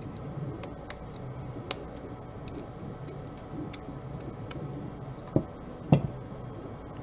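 Small clicks and taps of pliers and 3D-printed plastic parts being handled while pins are pressed in, with two louder knocks about a second apart near the end as parts are set down.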